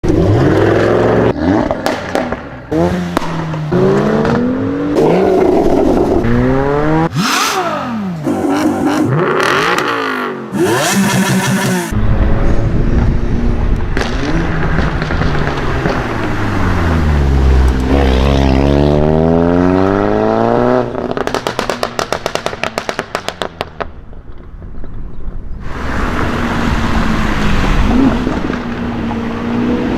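Several sports-car engines revving and accelerating, one after another, their pitch rising and falling, with the sound changing abruptly several times. About two-thirds of the way through comes a rapid run of exhaust pops and crackles.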